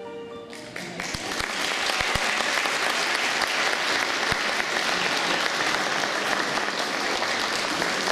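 An audience in a hall bursts into steady applause about half a second in, just as the last held note of the choir and keyboard dies away.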